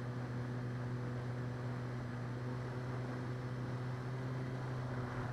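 An E-flite Clipped Wing Cub RC plane in flight, heard from on board: its electric motor and propeller give a steady low hum with a few overtones over a hiss of wind.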